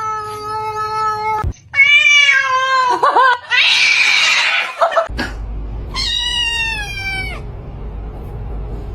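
Domestic cat meowing in three long, drawn-out calls, with a hiss-like noise between the second and third.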